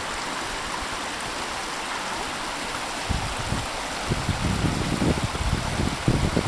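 Water rushing steadily over rocks and through the sticks of a beaver dam. From about three seconds in, a low, uneven rumbling on the microphone joins it.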